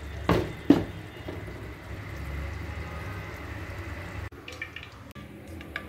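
Conical earthenware tagine lid set down on its clay base: two sharp clay-on-clay knocks about half a second apart, followed by a steady low hum.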